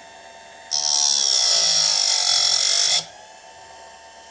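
Bench chainsaw chain sharpener's electric grinding wheel spinning with a steady whir. About a second in, the wheel is lowered onto a chain tooth and grinds loudly with a high, bright screech for about two seconds, then lifts off, leaving the motor whirring.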